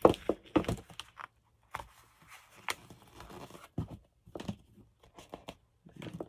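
Paper being handled: rustling and crinkling of paper scraps in a run of short, irregular crackles, the loudest near the start.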